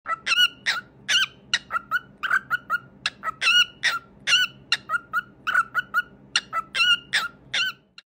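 Male grey cockatiel singing: a quick run of short, clear whistled chirps, several a second, many swooping up and down in pitch.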